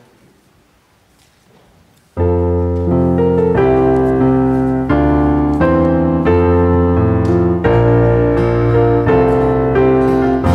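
Faint room murmur, then about two seconds in a keyboard starts playing loud held chords in the style of an electric piano, changing about once a second: the introduction to a worship song.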